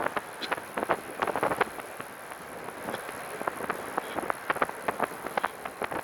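Irregular clicking rattle from the rear of a Catrike 700 recumbent trike while it is ridden, a quick run of sharp ticks at uneven spacing over steady wind noise on the microphone. Its cause is unknown; a stop to look turned up nothing unusual.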